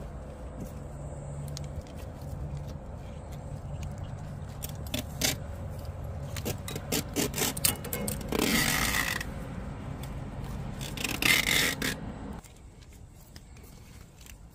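Electrical tape being pulled off the roll in two rasping strips, about a second each, with small clicks of handling as the chafed wire is wrapped. A low steady hum underneath cuts off suddenly near the end.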